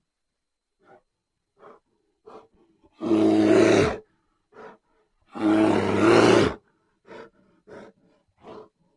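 Brown bear roaring twice, each roar lasting about a second, with short quieter sounds between and after the roars.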